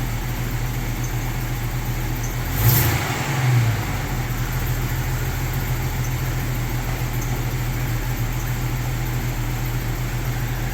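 Jeep Cherokee XJ's freshly rebuilt engine idling steadily, with two brief rises in revs about three seconds in.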